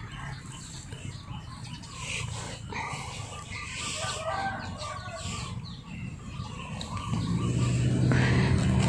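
Soft scraping and pressing of potting soil as marigold cuttings are set into a planter by hand, with animal calls like fowl in the background. A louder, steadier low drone comes in near the end.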